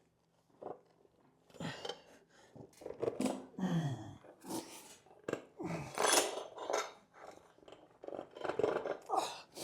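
Rubber airbox boots rubbing and scraping as they are forced by hand over a Honda CB750's carburetors, broken by strained grunts and groans from the man doing the work.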